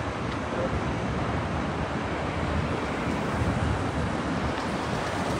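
Steady city street noise from cars driving by, with wind rushing over the microphone.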